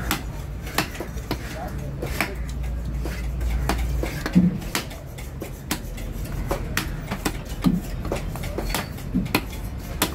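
A long fish-cutting knife chopping through a fish on a wooden block: sharp knocks of the blade into the wood at irregular intervals, roughly two a second, over a steady low hum and voices.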